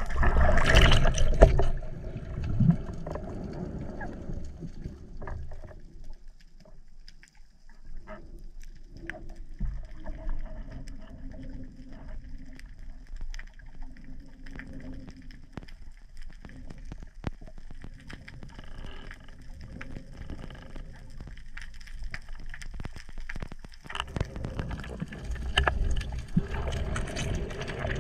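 Water heard underwater on a dive: a loud rush of water and bubbles as the diver goes under, then muffled water with scattered clicks and crackles, and another loud rush of water near the end.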